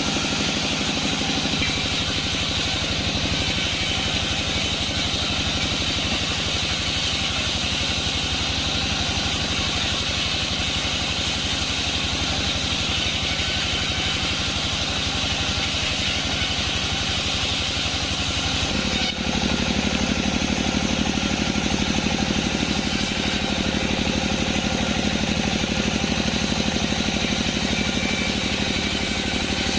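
Sawmill bandsaw machinery running steadily with an engine-like hum. About two-thirds of the way through the sound changes and the low hum gets a little louder.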